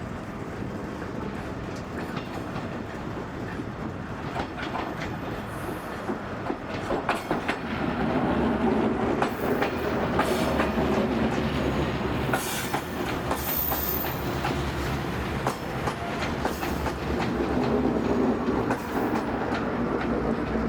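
Passenger train rolling through a station, its wheels clattering over the rail joints, growing louder about eight seconds in as the cars come close.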